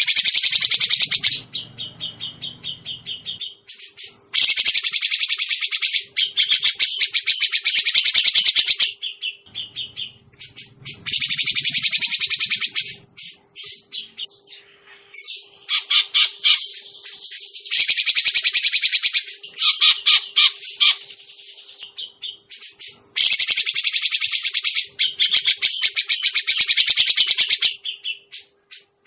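Cucak jenggot (grey-cheeked bulbul) calling in bursts of very rapid, high chattering notes, each burst lasting a few seconds with short gaps between, over a faint steady hum.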